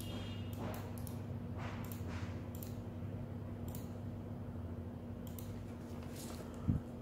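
Steady low electrical hum under scattered soft clicks and rustles from mouse use and handling at a computer desk, with a short low thump near the end.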